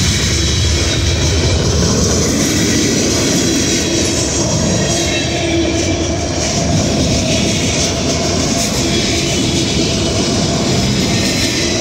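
CSX freight train rolling past, a steady loud rumble and clatter of its wheels on the rails.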